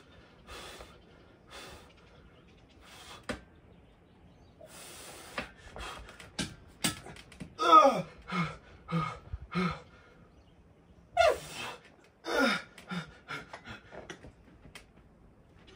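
A man grunting and breathing hard under the strain of heavy seated dumbbell shoulder presses near failure. Short strained grunts fall in pitch and come in two clusters, from about halfway through and again later, between sharp breaths.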